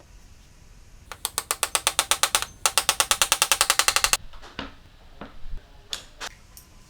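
Rapid mechanical clicking like a ratchet, about ten sharp clicks a second for roughly three seconds with a short break partway, followed by a few separate knocks.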